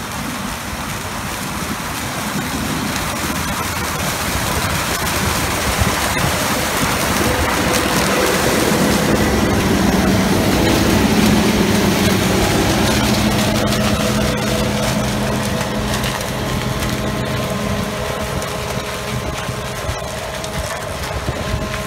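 New Holland TC5070 combine harvester running and cutting sunflowers: a dense, steady mix of engine hum and machinery noise. It grows louder as the machine passes close by around the middle, then fades as it moves away.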